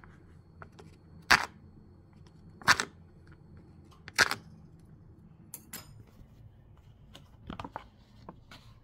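Handling of an instant-noodle cup and its packaging: three sharp crackles about a second and a half apart, then softer clicks and rustles.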